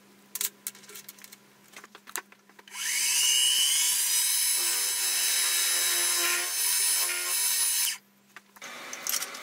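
A few light clicks of steel parts being set in a milling vise, then a Sieg X2.7 mini mill's spindle spinning up and running steadily while a twist drill bores a cross hole into a round bar. The spindle rises in pitch as it starts, runs about five seconds and stops suddenly.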